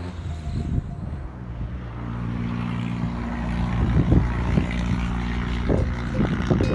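An engine running steadily with an unchanging low hum that slowly grows louder, with a few short dull thumps over it in the second half.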